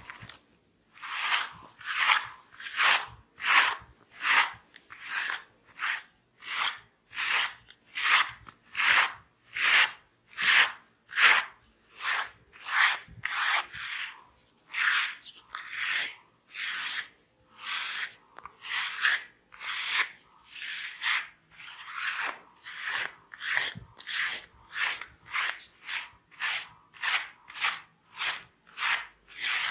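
Massage strokes: hands rubbing briskly back and forth in a steady rhythm, about one and a half strokes a second, each a short, dry rub.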